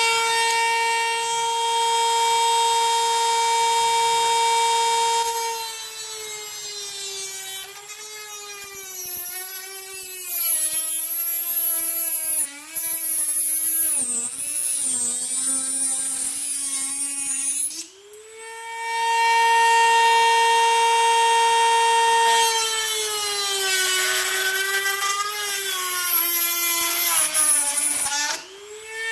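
High-speed rotary tool fitted with a small HSS circular saw blade, cutting plywood. The motor whine runs steady at first. About five seconds in, its pitch drops and wavers for some twelve seconds as the blade bites into the wood. It briefly falls quiet, runs free and steady again, then drops and wavers through a second cut of about six seconds near the end.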